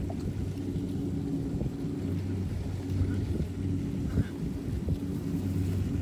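Kubota DC-70 Plus combine harvester's diesel engine running steadily under load while it cuts rice, a low, even drone.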